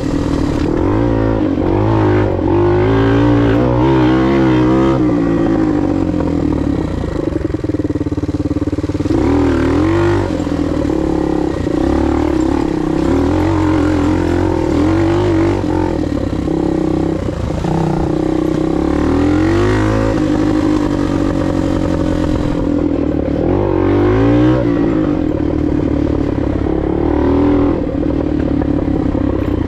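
Suzuki DR 125's single-cylinder four-stroke engine running under way off-road, its revs rising and falling several times as the throttle is worked.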